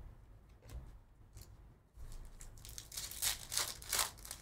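Foil wrapper of a 2023 Topps Chrome Formula 1 hobby card pack being torn open and crinkled by hand. A few faint ticks come first, then crackly rustling from about halfway in, loudest near the end.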